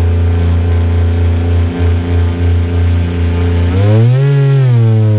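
Radio-controlled boat's motor running steadily from on board the boat, its pitch rising briefly about four seconds in as the throttle is opened, then falling back.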